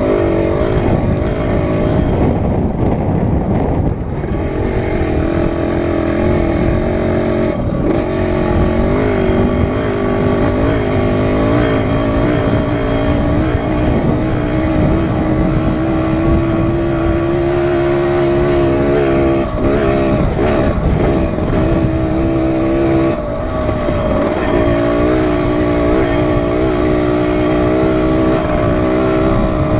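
Dirt bike engine running under way, its pitch rising and falling as the throttle changes, with a long steady climb around the middle and a few brief drops off the throttle. A heavy low rumble of wind on the helmet-mounted microphone runs beneath it.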